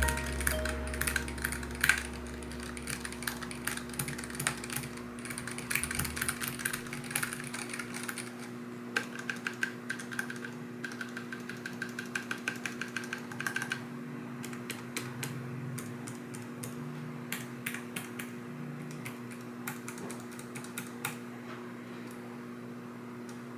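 Typing on a Keychron K3 v2 low-profile mechanical keyboard: a fast, irregular run of key clicks that thins out to scattered keystrokes after about fourteen seconds and mostly stops near the end. A steady low hum runs underneath.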